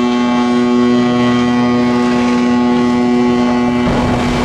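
A ship's horn sounding one long steady blast; about four seconds in, a loud rushing splash joins it as the ship's hull hits the water broadside in a side launch.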